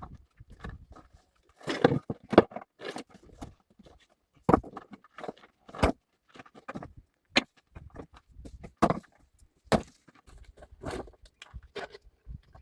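Scattered sharp clicks and knocks at irregular intervals, with short quiet gaps between them.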